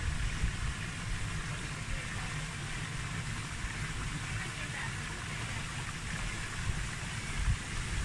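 Small waterfall splashing into a rocky pool: a steady rush of falling water. A low, uneven rumble of wind buffets the microphone underneath.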